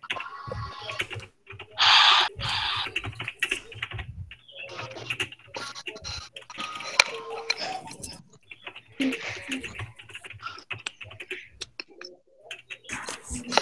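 Computer keyboard being typed on and clicked, in short irregular clicks, with a brief loud noisy burst about two seconds in.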